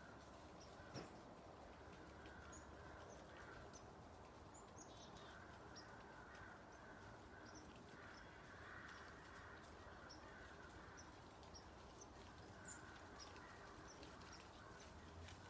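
Near silence: quiet outdoor ambience with faint, scattered bird chirps and a few distant bird calls.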